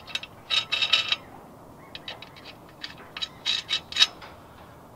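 Steel lug nuts being spun onto wheel studs by hand, with quick metallic clicks and rattles from the nuts on the threads and against the steel wheel, in two short flurries.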